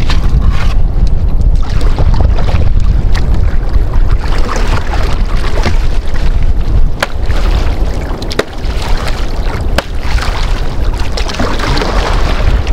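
Single-bladed paddle stroking and splashing the water beside a small wooden outrigger canoe, with a few sharp knocks, under heavy wind rumble on the microphone.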